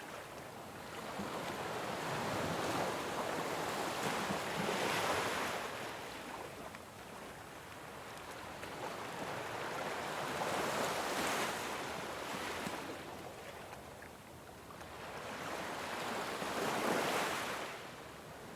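Ocean waves breaking and washing up on a shore, swelling and receding in slow surges about six seconds apart, three times.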